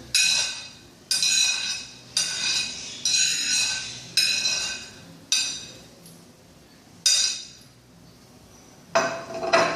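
A bowl struck about eight times by a utensil while shredded green papaya is transferred into it, each knock ringing on and dying away.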